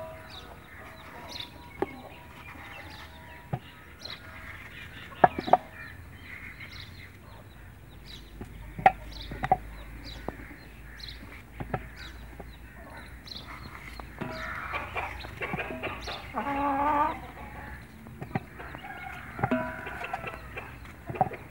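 Bottle gourd being cut by hand with a knife, the pieces dropping into an aluminium pot with a scatter of sharp knocks. Clucking bird calls run alongside and are loudest about two-thirds of the way through.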